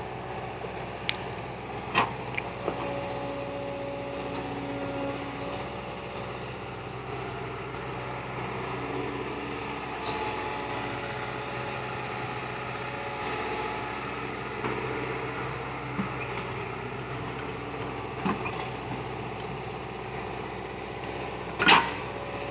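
Excavator engine running steadily, with higher steady tones that come and go as it works, and a few sharp knocks, the loudest just before the end.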